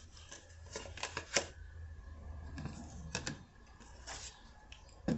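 A few light, irregular clicks and taps over a steady low hum, the kind of small noises made handling objects on a table.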